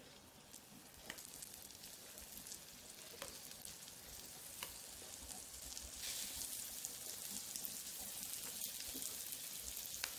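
Halved boiled eggs frying gently in a little oil and chilli powder on a low flame: a faint, steady sizzle with small pops and crackles, growing louder about six seconds in as more egg halves go into the pan.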